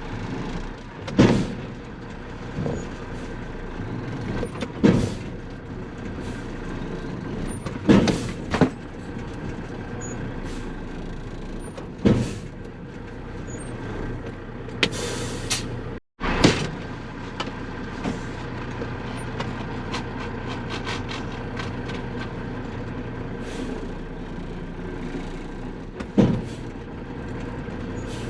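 Dump truck engine running steadily while driving, with loud clunks and rattles every few seconds.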